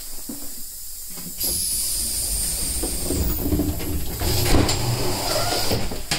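Steady hiss with a low rumble in the gangway between two passenger coaches of a train standing at a station. It starts suddenly about a second and a half in, with a high thin whine gliding down at first and a knock about four and a half seconds in, and it cuts off suddenly near the end.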